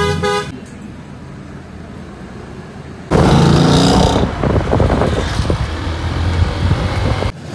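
Ford Mustang GT's 5.0-litre V8 exhaust, loud and coming in suddenly about three seconds in as the car drives off down the road. Before that, quieter traffic noise with a brief horn at the very start.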